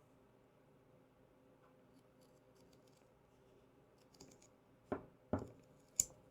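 Scissors snipping three times in quick succession near the end, trimming a strip of material, after a few seconds of faint small clicks.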